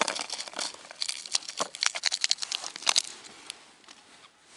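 Small paper sachet of bait powder crinkling in the fingers as it is opened and shaken out. A quick run of crisp crackles lasts about three seconds, then dies away.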